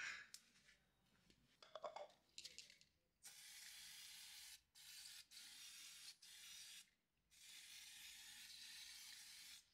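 Aerosol brake cleaner sprayed onto a scooter's drum-brake backing plate in about five faint hissing bursts, with a few light handling clicks before the spraying starts.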